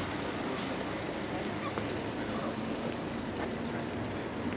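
Steady outdoor rushing noise, even throughout, with no clear single source standing out.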